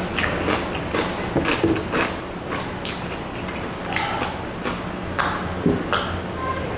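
Close-up chewing and mouth sounds: irregular wet clicks and smacks from a mouthful of food. About four seconds in, these give way to gulps of water drunk from a glass.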